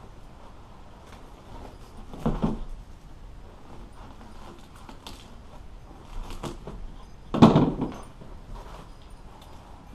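Hand work on boat-seat upholstery being stripped off its wooden backing: scattered clicks, scrapes and knocks, the loudest about seven and a half seconds in.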